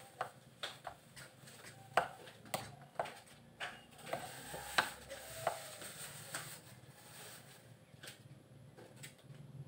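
Metal spoon stirring oatmeal in a ceramic bowl, clinking and scraping against the bowl in irregular taps, most of them in the first two-thirds.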